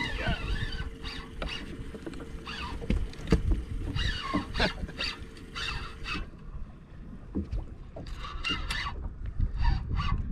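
Water lapping and slapping against a bass boat's hull, with wind on the microphone and scattered knocks and squeaks from the boat. A thin steady hum runs underneath and stops about six seconds in.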